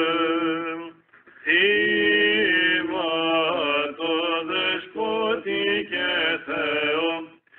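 Men chanting Byzantine chant in Greek. A held note breaks off about a second in, and after a short pause a new phrase begins, sung with ornamented turns and glides in pitch.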